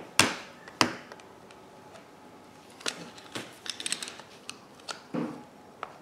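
A few sharp metal clicks and taps from hand tools on a CV joint and axle shaft as a screwdriver works the snap ring. There is a quick run of small clicks a bit before the middle.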